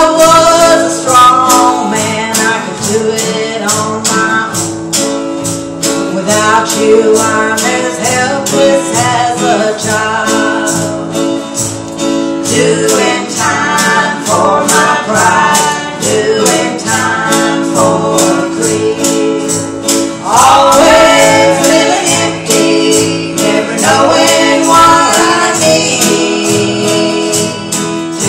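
Live country gospel song: women singing into microphones with strummed acoustic guitar and keyboard accompaniment over a steady beat.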